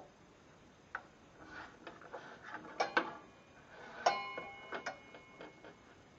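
A metal square and rule clicking and knocking against a miter saw's blade and base as they are set in place, a handful of light clicks, the loudest about four seconds in ringing briefly like struck metal.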